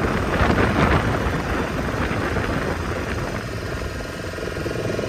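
Motor of a wooden lake boat running steadily under way, a low, rapid pulsing rumble.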